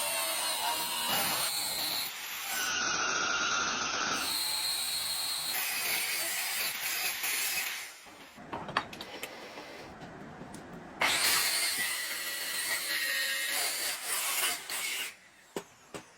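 Workshop power-tool noise, a loud steady hiss that changes abruptly from clip to clip. Two quieter stretches carry a few sharp clicks or taps.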